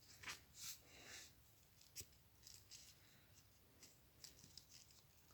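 Very faint scratchy rustling of small things being handled: a few soft brushes early on and one brief sharp tick about two seconds in.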